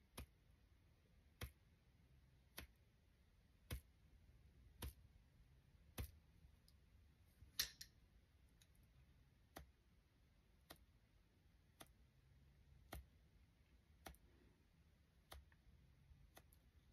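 Bristles of dyed-weasel and marten eyeshadow brushes flicked with a fingertip to test their snap: a series of small, sharp clicks about once a second.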